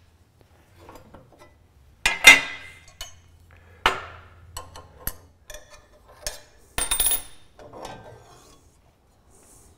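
Metal clanks and clinks from working on a table saw: the steel throat plate lifted out and set down on the saw table, and a wrench on the blade arbor nut as the blade is taken off to fit a dado stack. Several separate sharp knocks, the loudest about two seconds in, with ringing clinks near seven seconds.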